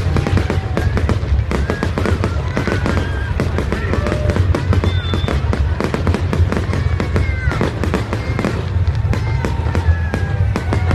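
Fireworks display: aerial shells bursting in quick succession, a dense, continuous run of bangs and crackles.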